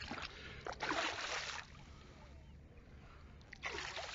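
Water splashing in shallow sea water, twice: a louder splash about a second in and another near the end, with spray thrown up.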